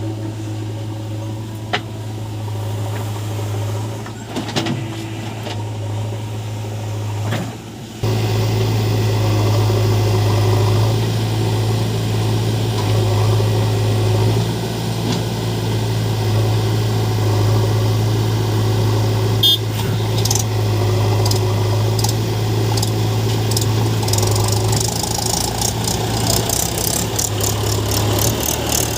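Heavy diesel engine running steadily with a low, even hum, getting suddenly louder about eight seconds in.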